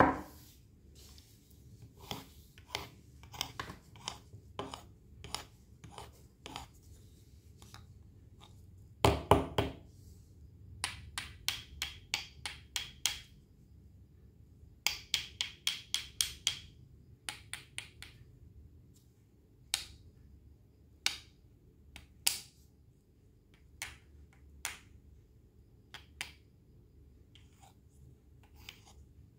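Knife cutting fruit on a cutting board: scattered single cuts and knocks, with two quick runs of even chopping strokes, about five a second, in the middle.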